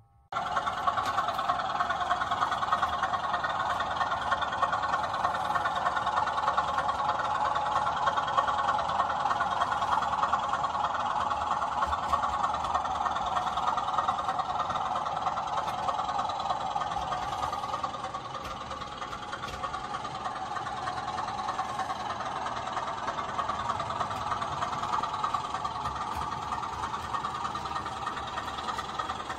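Sound-fitted OO gauge model InterCity 125 (HST) running past, its sound decoder playing the diesel power car's engine sound through the model's speaker. A steady drone that cuts in abruptly at the start and eases slightly a little past halfway.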